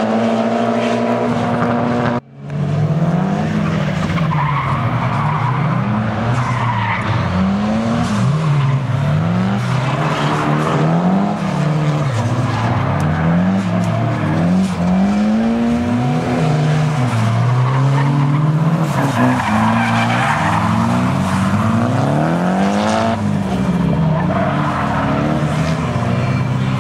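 Drift cars sliding in tandem: engines revving up and down over and over, with tires skidding and squealing. The sound cuts out briefly about two seconds in.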